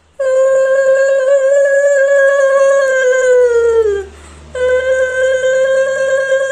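Conch shell (shankha) blown in two long, steady blasts: the first sinks in pitch and dies away about four seconds in, and the second starts again about half a second later.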